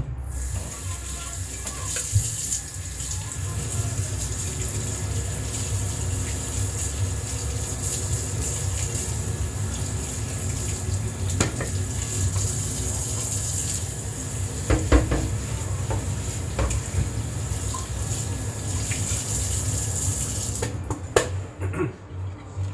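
Kitchen tap running steadily into a sink during washing-up, with a few knocks and clinks. The water cuts off near the end.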